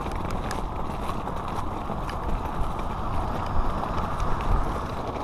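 Footsteps crunching on a wet gravel path, with a steady low rush of wind on the microphone.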